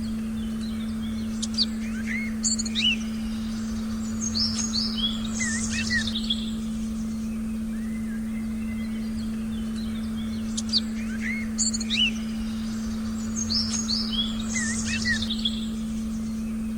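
Forest birdsong, quick chirps and short whistles in two bursts that repeat the same sequence about nine seconds apart, over a steady low synthesized drone tone.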